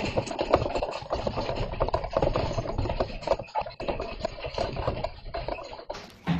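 A house shaking in an earthquake: a steady rumble with many quick knocks and rattles, heard through a security camera's microphone.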